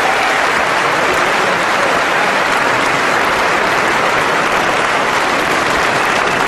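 Large audience applauding: dense, steady clapping with no letting up.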